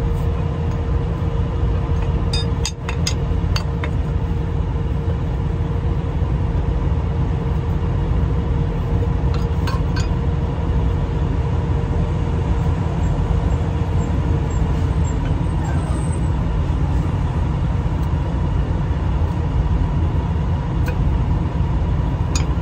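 Steady low rumble of an idling engine with a constant hum, and a few light metal clinks from the steel clamp band being worked around a truck's air brake chamber, about three seconds in and again around ten seconds.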